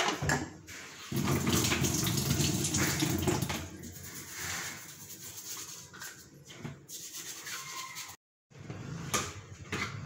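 Water running from a kitchen tap and splashing over a table fan's wire guard held in the sink as it is washed. The running water is loudest for the first few seconds, then quieter, and breaks off for a moment near the end.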